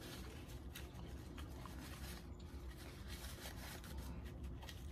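Paper napkin rustling faintly as it is rubbed over the mouth and hands, a scatter of soft crinkles over a low room hum.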